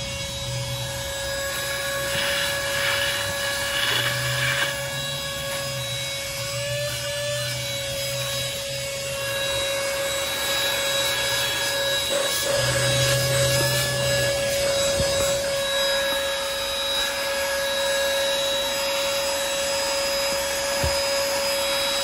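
Farasla cordless handheld car vacuum running with its crevice nozzle, a steady high motor whine, with the nozzle rubbing and scraping over seat fabric and the rubber floor mat now and then.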